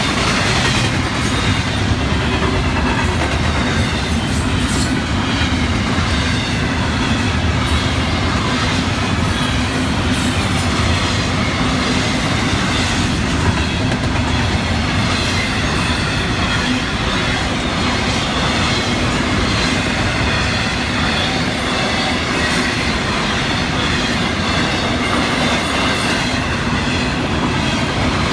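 Intermodal freight train's double-stack container cars and trailer-carrying flatcars rolling past, steel wheels rumbling and clattering over the rails at a steady level.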